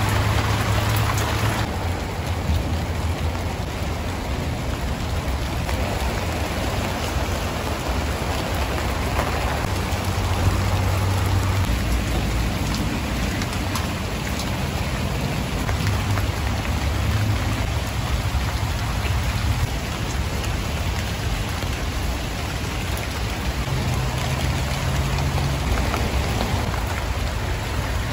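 Steady rain falling, a dense even patter of drops on plants.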